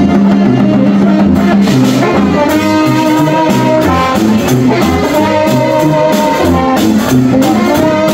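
Street brass band playing: a sousaphone's bass line under brass melody, with steady drum beats.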